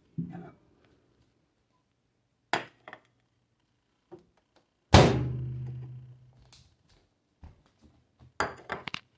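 A few knocks and thunks as a glass plate of chocolate chips is taken out of a microwave oven and handled. The loudest thunk, about five seconds in, rings on for about a second, and a quick run of clicks comes near the end.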